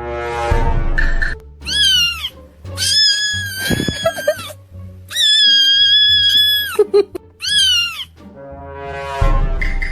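A cat meowing four times over background music: a short call, two long drawn-out calls, then another short one.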